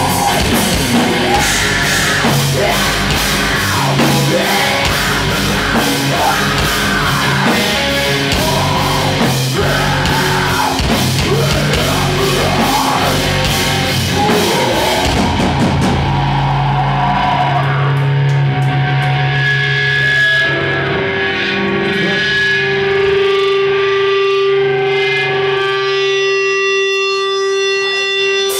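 Heavy rock band playing live: distorted electric guitars, bass and a drum kit with cymbals under vocals. About halfway through, the drums and cymbals drop out and the guitars ring on in held notes, one steady tone sustained to the end.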